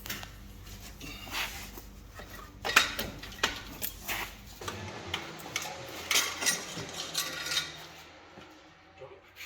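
Steel hand tools and metal parts clinking and knocking irregularly, some strikes ringing briefly, as a mechanic works a spanner on the underside of a car.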